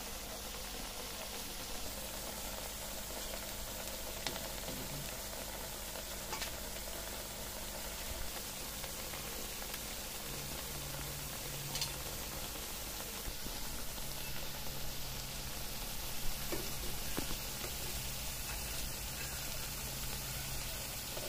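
Batter-coated pumpkin-flower pakoras frying in hot oil: a steady sizzle with a few sharp clicks now and then.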